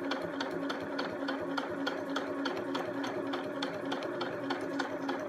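Electric domestic sewing machine running steadily as it stitches a seam in cotton fabric: a constant motor hum with a rapid, even ticking of the needle.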